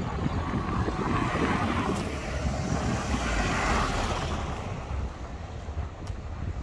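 A car passing by, its tyre and engine noise swelling to a peak and fading away over a few seconds, with wind rumbling on the microphone.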